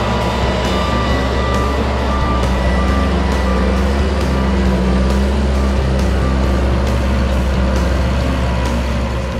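Large tractor's engine running steadily with a low hum, and an electronic beep repeating about twice a second like a reversing alarm, mixed with background music.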